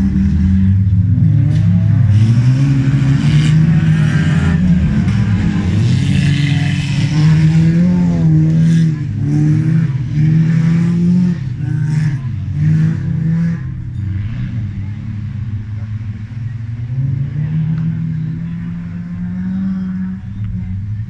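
Engines of wreck-race cars racing on a dirt track, revving hard and rising and falling in pitch, with sharp clattering knocks mixed in. The engine sound grows quieter about two-thirds of the way through as the cars move off.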